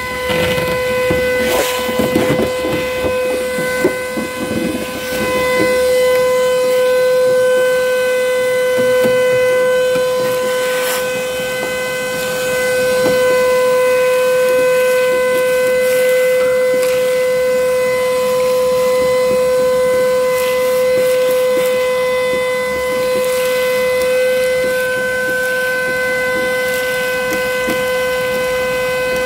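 Vacuum cleaner running with a steady high whine and hiss as its hose sucks dirt out of a car's floor and door sill, with scattered clattering and knocks during the first several seconds.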